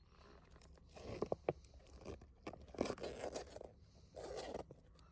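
Faint, irregular scraping and clicking handling noises in short bursts.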